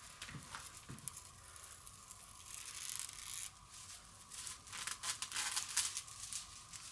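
Thin Mylar diaphragm film being peeled off an electrostatic speaker panel's stator, giving quiet, irregular crackling and tearing that swells twice, around a third of the way in and again near the end.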